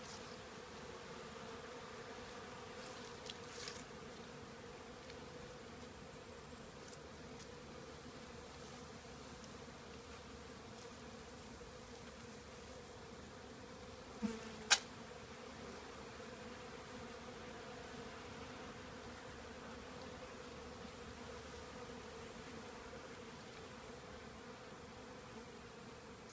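Many honey bees buzzing in a steady drone as they crowd over extracted honey frames, cleaning out the leftover honey. A couple of faint clicks come a few seconds in, and a single sharp click about halfway through.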